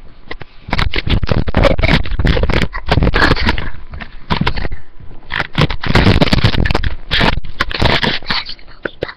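Loud scraping and rustling handling noise as a handheld recording device rubs against clothing while it is carried about, full of clicks and knocks, in bouts with a brief lull about four seconds in.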